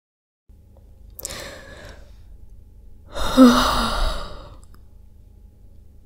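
A person yawning: a breath drawn in about a second in, then a louder, drawn-out breath out with a falling vocal sound about three seconds in, lasting just over a second.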